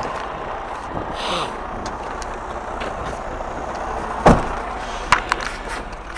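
Semi-truck engine running steadily while the rig backs up. A brief hiss comes about a second in, and a single sharp thump about four seconds in, followed by two lighter clicks.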